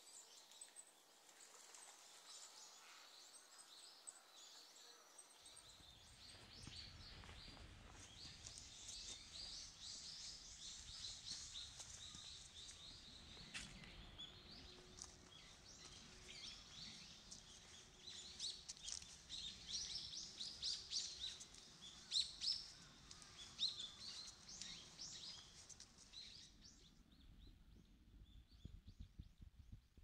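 Small songbirds calling: many short, high chirps and twitters, thickest in the middle and thinning out near the end. A faint low rumble comes in about five seconds in.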